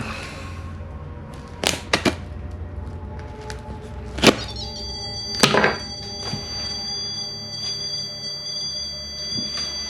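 A knife cutting into a cardboard box, with a few sharp scrapes and cuts. About halfway in, a REM pod sets off a steady, high electronic tone that holds on: its alarm, triggered when the knife comes near the box.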